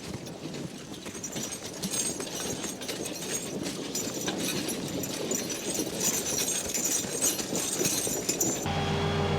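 A draft horse team hauling a log wagon: hooves, jingling harness and a rattling wagon in an irregular clatter. Near the end it cuts abruptly to a diesel log truck's engine idling steadily.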